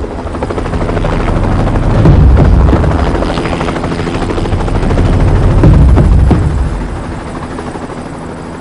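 Helicopter rotor chop, a fast steady thudding that swells louder about two seconds in and again near six seconds, then eases off toward the end.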